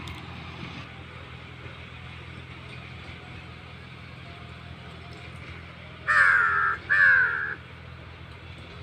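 A crow cawing twice about six seconds in, two loud calls of about half a second each with a falling pitch. Under them runs the steady low hum of a John Deere 5050E tractor's diesel engine working the field.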